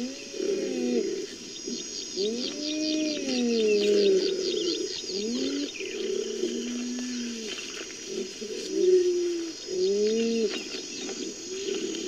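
Cheetah calls: a string of about eight short, bird-like calls, each rising and then falling in pitch, over a steady high chirring background.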